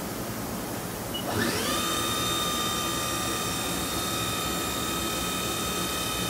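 Haas VF3 CNC mill's spindle spinning up about a second in: a whine that rises quickly and then holds a steady high pitch, over a steady background hiss.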